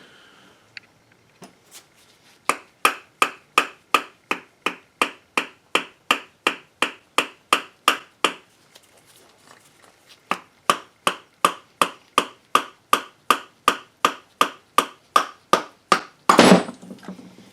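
Mallet blows knocking the spline shaft and its bearing out of a power steering pump housing: two long runs of steady blows, about three a second, with a short pause between. A louder clatter near the end.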